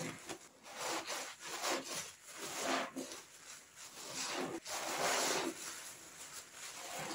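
Repeated rubbing and squishing strokes of hands working cleaning material, each a swell of hissing noise under a second long, about one a second.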